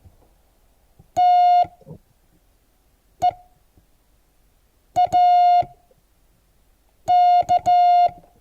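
Morse code practice tone slowly sending the word TEAK, one letter about every two seconds: dah (T), dit (E), dit-dah (A), dah-dit-dah (K). It is a single steady beep with a buzzy edge.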